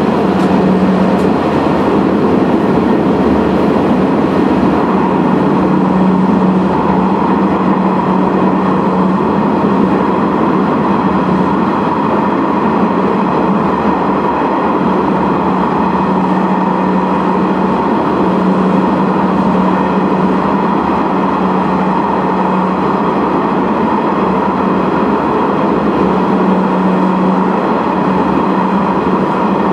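Sanriku Railway 36-series diesel railcar running at speed through a tunnel, heard from inside the car: a steady, loud rumble of engine and wheels on rail with a constant low hum.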